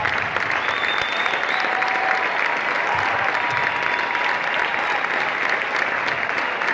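A large audience applauding steadily after a dance performance ends.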